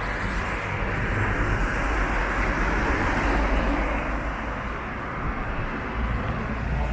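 City street traffic noise, with a vehicle passing close by that swells about one to three seconds in and then eases off.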